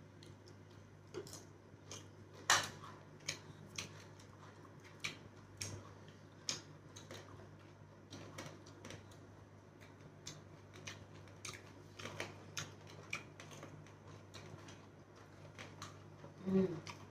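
Close-up eating sounds from two people eating with their hands: irregular chewing and mouth-smacking clicks, the loudest about two and a half seconds in, over a low steady hum.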